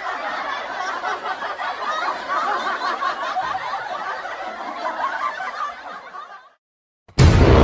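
Several people snickering and chuckling together, the laughter fading out about six and a half seconds in. After a brief silence, loud music cuts in near the end.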